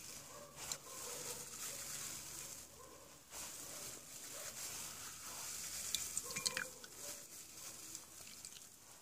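Black inkjet cartridge's foam sponge being squeezed and rubbed in a bowl of water by a plastic-gloved hand: faint wet squishing and crackle, with a few small clicks about six seconds in, as the dried ink is washed out of the sponge.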